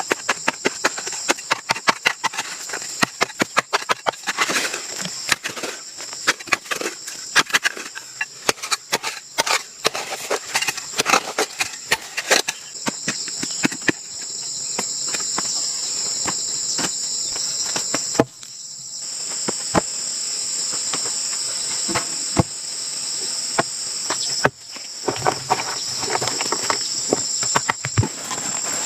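Steady, high-pitched chirring of rainforest insects, with many sharp, irregular knocks and clicks over it for the first half and again near the end.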